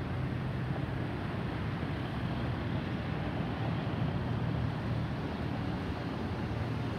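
Steady distant rumble of an Airbus A320neo's CFM LEAP-1A turbofan engines as the airliner passes high overhead.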